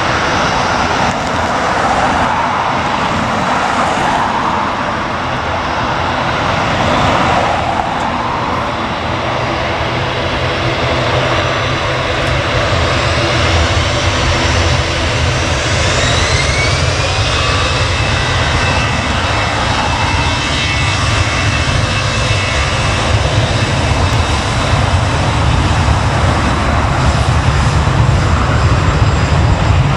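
Airliner engines running loud and continuous, with a whine rising in pitch about halfway through that then holds steady.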